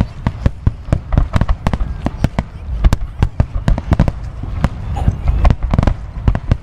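Aerial fireworks shells bursting in a rapid barrage, several deep booms a second overlapping with sharper cracks.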